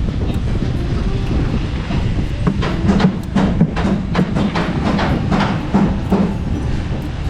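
Plasterer's trowel working cement render on a wall: a run of about a dozen quick scraping strokes, two or three a second, starting about two and a half seconds in, over a steady low rumble.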